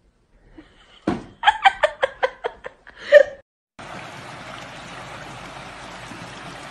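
A person laughing in a quick run of loud bursts, about four a second, for roughly two seconds. Then, a little under four seconds in, a steady hiss of outdoor noise takes over.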